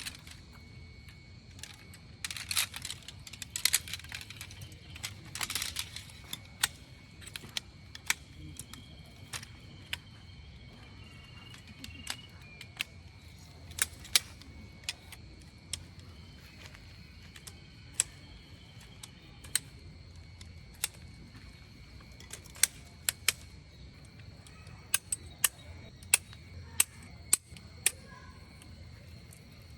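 Scattered sharp clicks and taps at an irregular pace, with a cluster of rustling in the first few seconds, over a faint steady high-pitched insect drone.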